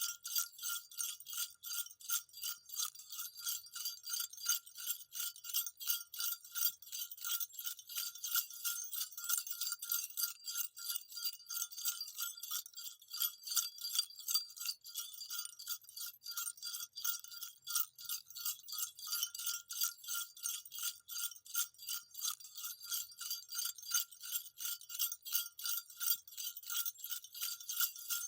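Small jingle bells shaken over and over in a quick, steady rhythm: a bright, high jingling with one ringing tone running through it.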